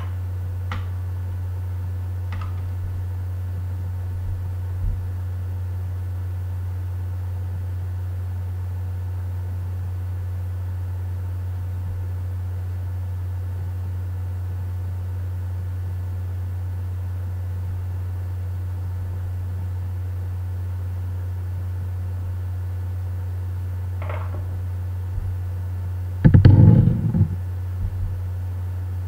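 A steady low hum, with a brief louder sound lasting about a second near the end.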